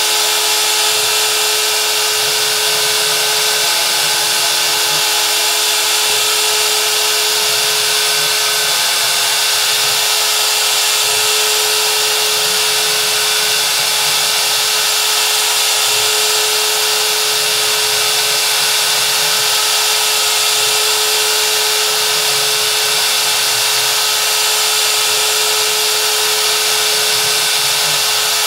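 CNC router spindle running at a steady pitch while a V-carving bit makes light, shallow passes into MDF, a constant whine over hiss.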